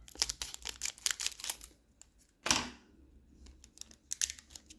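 Foil wrapper of a Magic: The Gathering booster pack crinkling as it is handled and torn open. Quick crackles come first, then a single louder rip about two and a half seconds in, and more crinkling near the end.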